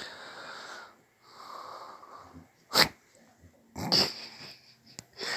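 Close breathing: two long breaths of about a second each, then a short sharp puff about three seconds in and another breathy sound about a second later.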